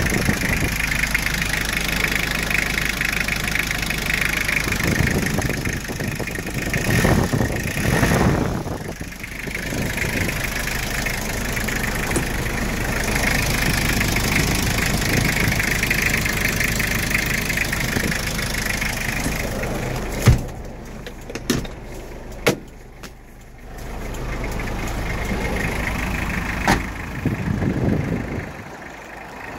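Toyota Townace's 2-litre diesel engine idling steadily. About two-thirds of the way through the sound dips and a few sharp knocks are heard, and then the engine sound comes back.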